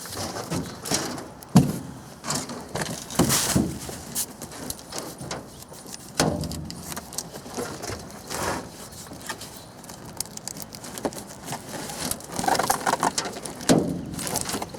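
Irregular wooden knocks, clatters and scraping as the packed sawmill parts and crate materials are handled, with a sharp knock about a second and a half in.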